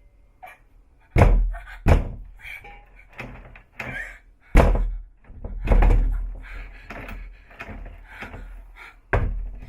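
Doors being opened and shut: a series of heavy thuds and knocks, five loud ones spread across the stretch with fainter knocks between.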